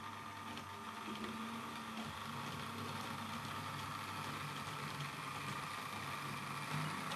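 Model railway diesel locomotives running along the layout's track: a steady hum of small electric motors and wheels on the rails.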